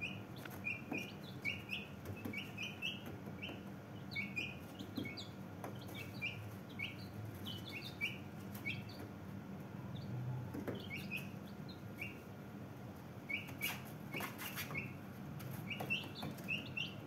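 Young Brahma chicks peeping: a steady run of short, high peeps, several a second, with a few short knocks about two-thirds of the way through.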